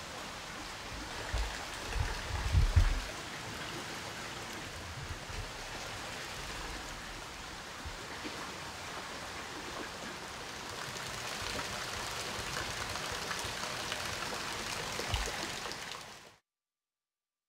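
Hot spring water flowing and splashing in a steady rush, with a few dull low thumps near the start and once near the end. The water sound stops abruptly near the end.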